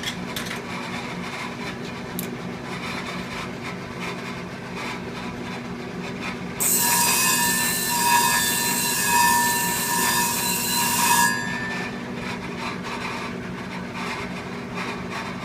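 Clipper blade sharpening machine running steadily with a low hum. About six seconds in, a loud harsh grinding of a blade on the grit-charged wheel starts abruptly, lasts about five seconds, and stops sharply, leaving the motor running.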